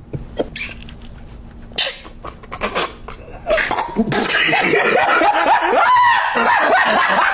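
Stifled laughter: short snorts and puffs of breath through a covered mouth, then laughter breaking out loudly about halfway through and carrying on.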